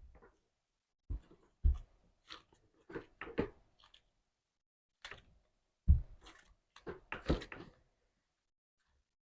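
Slime being handled, pressed and poked: a string of short sticky pops and clicks in irregular groups, some with a soft low thump.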